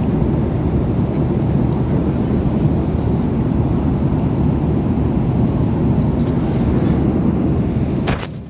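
Steady, loud rumble of a Boeing 737's jet engines and airflow, heard inside the cabin. It cuts off suddenly near the end.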